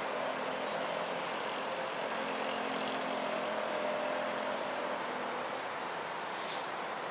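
Outdoor dusk ambience of a steady high insect drone with a faint low engine hum in the distance that fades out about five seconds in. A brief high-pitched sound comes near the end. The owl itself makes no call.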